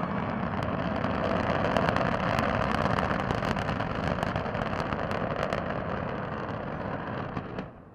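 Antares rocket's first-stage engines at launch: a steady roar with crackling through it, which drops away suddenly near the end.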